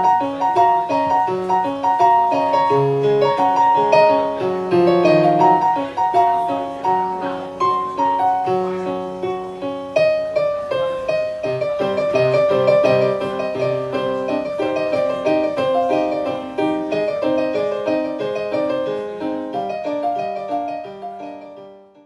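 Solo piano playing a gentle melody as the accompaniment to a silent film. It dies away near the end.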